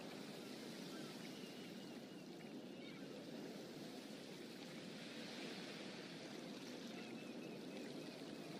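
A steady, even rushing noise like flowing water, with faint high chirps now and then.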